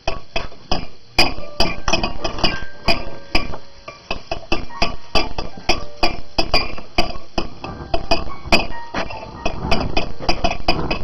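Background music with many sharp glass clinks, a few each second, as glassware is handled and knocked together on the table.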